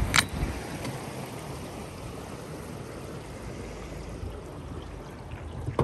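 Steady rush of wind and river water around an open fishing boat, with one sharp knock just after the start.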